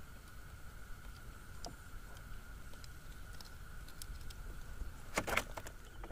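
Scattered light clicks and rattles of handling, with a short clatter about five seconds in, over a steady faint high hum and a low rumble.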